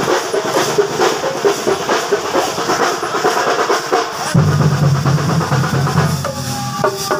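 Drum band playing a fast, even rhythm on large drums. From about four seconds in, a truck engine running close by adds a low steady hum under the drumming until near the end.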